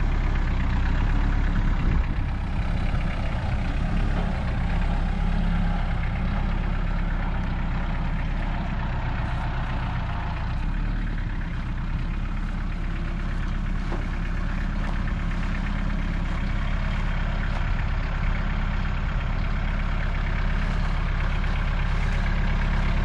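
A large farm tractor's engine running steadily at low revs.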